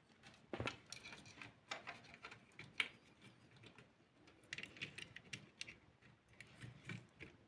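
Faint, irregular clicks, taps and light scrapes of small parts being handled, coming in short clusters.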